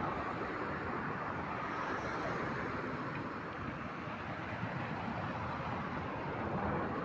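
Car driving at steady speed: an even rumble of road and wind noise with no distinct events.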